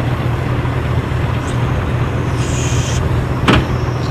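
Military vehicle's engine running with a steady low drone, and one sharp click about three and a half seconds in.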